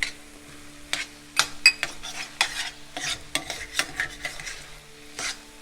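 A cooking utensil stirring and scraping through thick tomato sauce in a frying pan, in irregular strokes over a gentle sizzle, as spice powders are mixed into the sauce.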